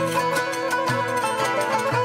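Classical Turkish kemençe, the pear-shaped three-string fiddle, bowed in a traditional melody. Its line is backed by plucked strings that keep an even pulse of note attacks.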